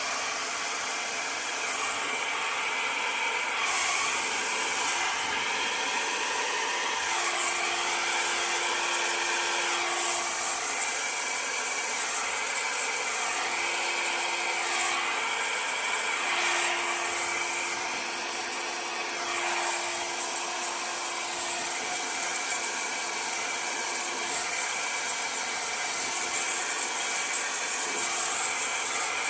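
Handheld hair dryer running steadily, blowing across wet acrylic pour paint, its hiss and hum wavering as it is moved over the canvas.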